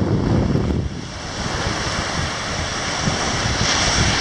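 Surf washing onto a sandy beach, with wind buffeting the microphone. The low wind rumble eases about a second in, and the hiss of the surf grows toward the end.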